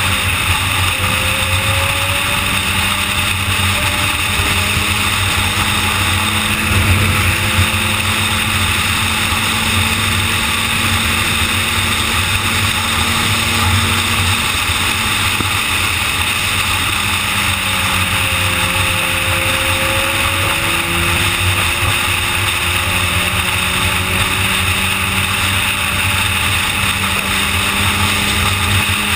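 Suzuki GSX-R sport bike's inline-four engine running steadily at highway cruising speed, heard under heavy wind rush on the bike-mounted microphone; the engine note drifts slowly up and down.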